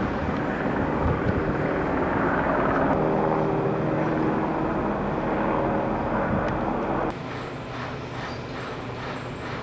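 Strong wind buffeting the microphone on a ferry deck. A ship's whistle sounds as a long steady tone from about three seconds in until roughly seven seconds, where the sound drops abruptly.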